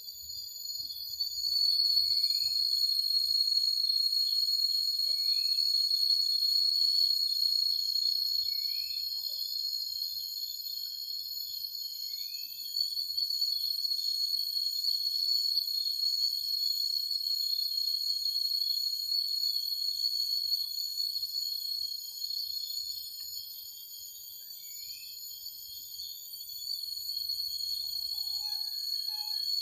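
Chorus of insects in the forest: a steady high-pitched drone that swells about two seconds in and dips briefly near the end, with a few short rising chirps now and then.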